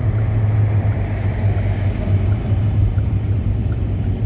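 Steady low rumble of road and engine noise inside the cabin of a Hyundai Elantra driving on a snowy highway. Faint small ticks repeat about twice a second underneath.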